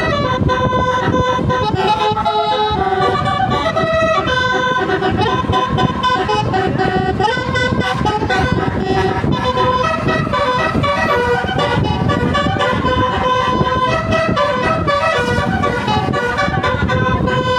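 Basuri telolet musical air horn on a tour bus playing a tune, its tones stepping from note to note without a break, over a steady low rumble.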